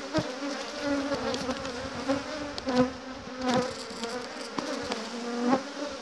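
Swarm of honeybees buzzing around an open hive, a steady hum that wavers in pitch as bees fly close, with a few light knocks.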